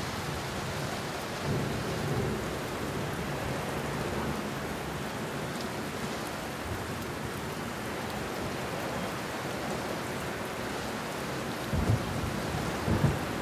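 Recorded rain and thunder played over a theatre's sound system: a steady hiss of heavy rain, with a low thunder rumble about two seconds in and two louder low cracks near the end.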